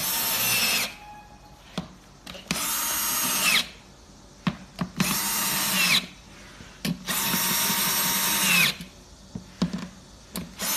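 Cordless drill-driver driving and tightening screws into the steel chair legs, in four short runs of about one to two seconds each. The motor's pitch drops at the end of each run as the screw pulls tight. Small handling clicks come between the runs.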